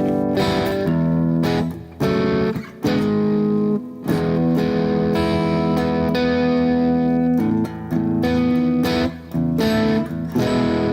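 Electric guitar played through an overdrive pedal: chords strummed and left to ring, with a few short breaks between phrases.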